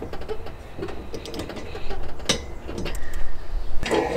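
Hand-fitting of bolts into the front bracket flange of a UTV headache rack: light metal handling noise with one sharp click about two seconds in and a few more clicks near the end.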